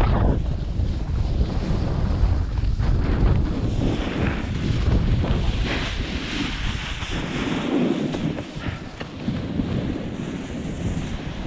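Wind buffeting the microphone of a body-worn action camera while a skier runs across tracked snow, the skis hissing and scraping over the snow, loudest around the middle. The low wind rumble eases after about eight seconds.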